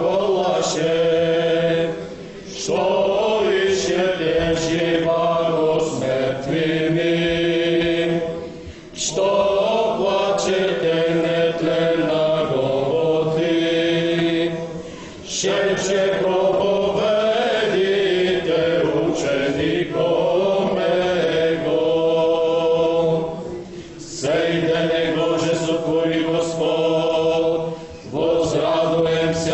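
Orthodox church choir chanting a Church Slavonic hymn in harmony, in long sung phrases broken by short pauses for breath.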